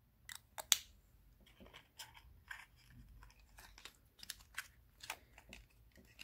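Lipstick cases and their packaging being handled: faint, irregular clicks and taps with light rustling, the loudest click about three-quarters of a second in.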